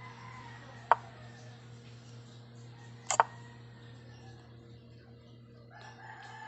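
Chess pieces set down on a board: a sharp clack about a second in, then a quick double clack about two seconds later, over a steady low hum.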